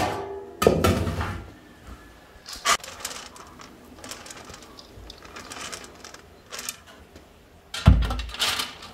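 A round metal tray clanks and rings as it is set down. Then sprouted wheat grains rustle and patter as they are poured from a steel bowl onto the metal tray, with a heavy metal knock near the end.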